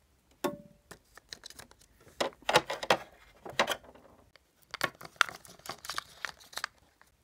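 Irregular clicks, taps and rustles of hands handling plastic Littlest Pet Shop toys and props close to the microphone.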